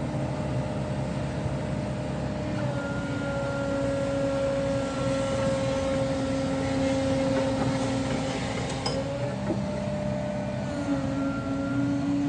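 Caterpillar 307 excavator's diesel engine running steadily, its pitch shifting slightly a few times.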